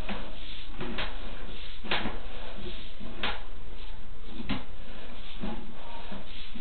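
Sewer inspection camera's push cable being fed by hand into a drain line: a short sliding knock about once a second, each a push stroke, over a steady hiss.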